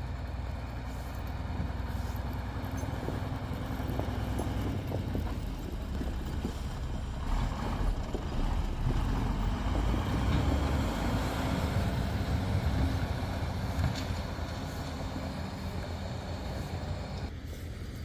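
Snowplow truck on snow-chained tyres with a front plow blade driving past, its engine running steadily and growing louder as it comes close, loudest mid-way, then cut off shortly before the end.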